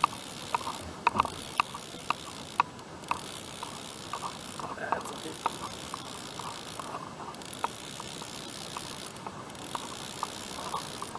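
Fishing reel being cranked under load, with many sharp, irregular clicks as a hooked rockfish is reeled up from deep water.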